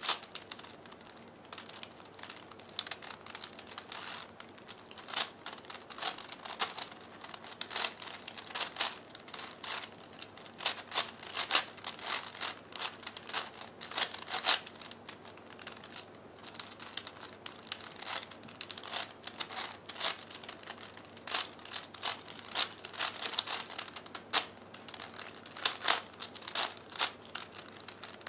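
Plastic clicking and clacking of a 5x5x5 V-Cube puzzle as its layers are turned by hand. The clicks come in rapid, irregular runs with short gaps between them.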